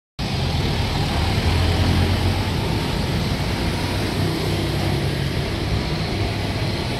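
Steady low rumble of vehicle noise, cutting in suddenly just after the start.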